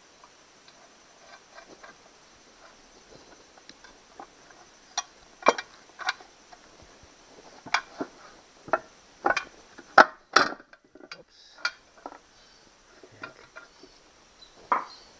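Irregular metallic clicks and clinks of a long steel tool rod and bolts against the aluminium lower-unit housing of a Honda 8 hp outboard. The clicks are sparse at first, then a dozen or so sharper ones come through the middle, as the lower unit is worked free of the midsection.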